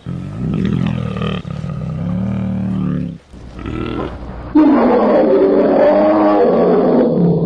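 Roar sound effects for a bear character: a drawn-out growling roar, a short break, then from about four and a half seconds in a louder, rougher roar that sounds like a separate clip.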